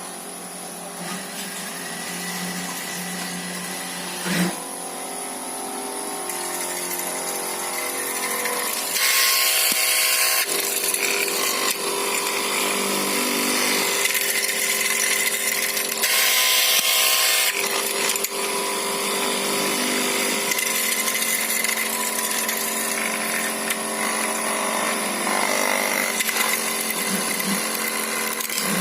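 Hand-guided electric fabric cutting machine running with a steady motor whine while it cuts laken woollen cloth. Two louder, hissier stretches of a second or two come about nine and sixteen seconds in.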